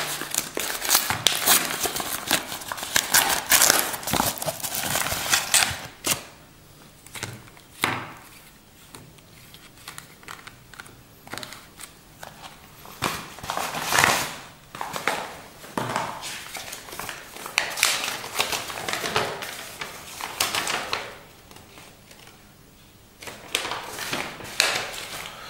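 Tissue-paper wrapping crinkling steadily as it is pulled away from the packets for about the first six seconds. After that come scattered rustles of plastic bags and soft taps as the bagged strap packets are handled and set down on a wooden table.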